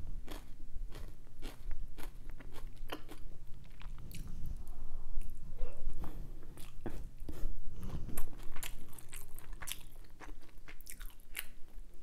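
Close-miked eating: a person chewing a mouthful of food, heard as an irregular run of short clicks.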